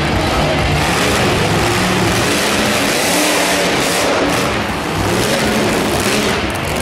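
Monster truck engine running loud at hard throttle and revving, as the truck charges up and jumps a row of junk cars.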